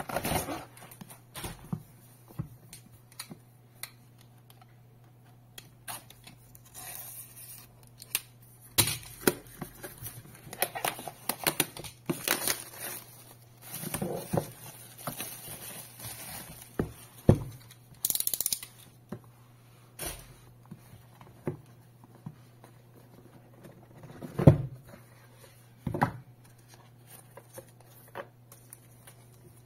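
Hands unwrapping and opening a cardboard tablet box: plastic wrap crinkles and tears and cardboard rustles and slides, in irregular bursts. The lid comes off, and there are a few sharp knocks as the box is handled, the loudest a little before the end. A faint steady low hum sits underneath.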